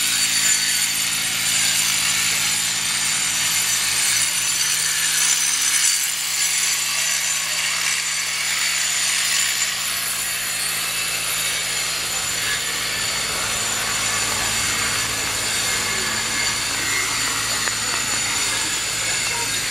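Wood being sawn, mostly in the first few seconds, over a constant high-pitched hiss.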